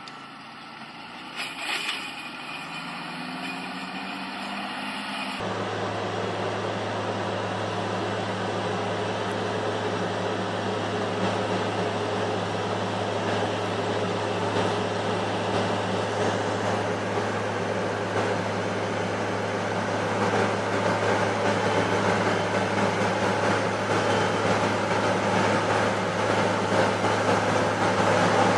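Large farm tractors' diesel engines running. A quieter engine sound with a brief knock about two seconds in switches abruptly, about five seconds in, to a steady low engine hum that grows gradually louder as the machine approaches.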